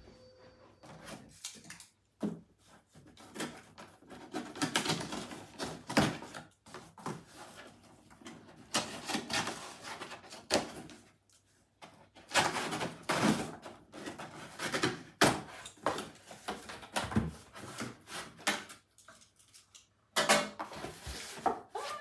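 Cardboard shipping box being opened by hand: scissors cutting through packing tape, cardboard scraping and rustling, and the flaps pulled open, with scattered knocks of the box being handled.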